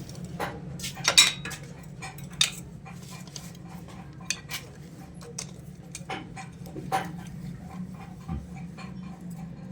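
A spanner clinking and clicking on the cover nuts of a Honda Shine engine as they are tightened, in irregular metallic taps, the loudest about a second in. A steady low hum runs underneath.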